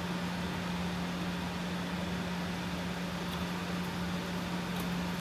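Steady low hum with an even hiss: background room tone, with a couple of very faint small ticks.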